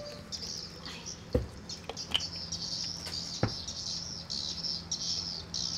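A steady chorus of repeated high chirping calls, with two dull thuds on wooden floorboards about one and a half and three and a half seconds in: footsteps on a wooden deck.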